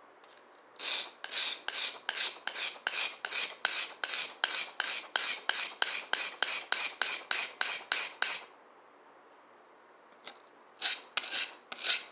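Knife blade stroked back and forth on a wet whetstone in quick, even scraping strokes, about three or four a second. The strokes stop for about two seconds and then start again near the end.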